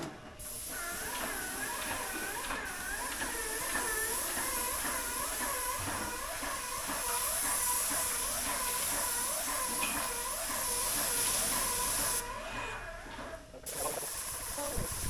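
Compressed-air paint spray gun hissing steadily as it sprays, with a warbling tone running underneath; the hiss cuts off about twelve seconds in.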